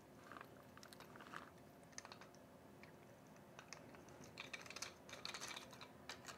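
Faint, scattered clicks and light taps of a terminal lug, nuts and insulator being fitted by hand onto a compressor's terminal studs, coming thicker in a cluster near the end.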